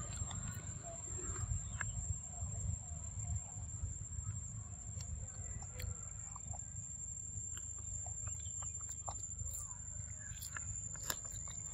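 A macaque eating a ripe mango, with faint scattered clicks of chewing and biting, over a low steady rumble and a constant high-pitched whine. Faint short bird calls come and go.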